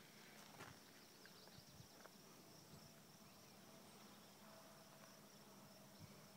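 Near silence: faint open-air ambience with a thin, steady high-pitched drone of distant insects, and a few faint chirps about a second in.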